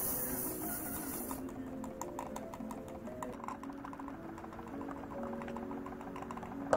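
Steam hissing from a small copper model-engine boiler, which cuts off about a second and a half in. Scattered light metallic clicks follow, over background music, with a sharp knock at the very end.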